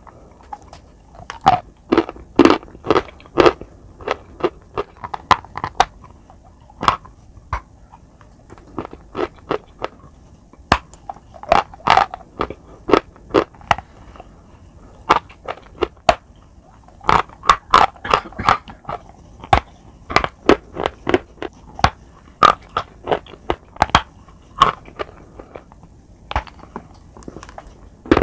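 Close-miked crunching of a dry white chalk bar being bitten off and chewed. The sharp crunches come in runs, with short pauses between them.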